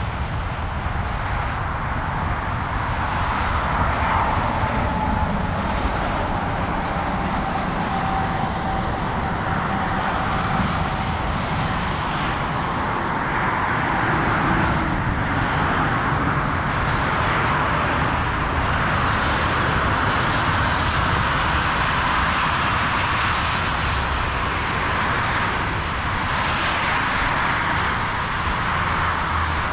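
Continuous motorway traffic noise from tyres and engines, swelling and easing as vehicles pass.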